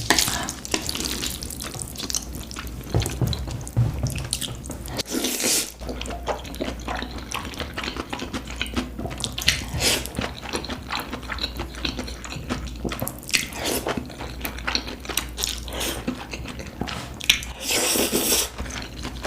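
Close-miked wet eating sounds: many small sticky clicks of chewing, broken by a few longer wet slurping bursts, the longest near the end.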